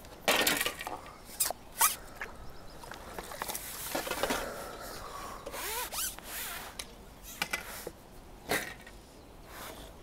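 Handling noise from fishing tackle: several sharp knocks and clicks, the loudest just after the start and near the end, with rasping, sliding sounds between them.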